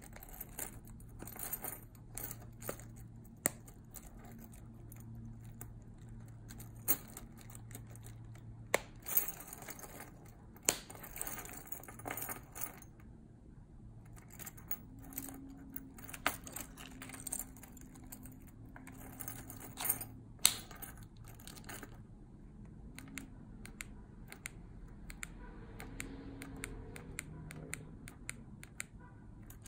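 Irregular clicks and taps of a plastic Jeep key fob shell being pressed and handled in the fingers, a few clicks sharper and louder than the rest, with the metal keys on its ring clinking and jingling.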